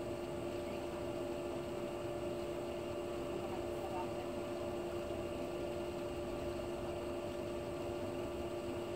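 Steady electric motor hum with two strong high tones over a constant rush, typical of an above-ground pool's filter pump running while the pool is being vacuumed.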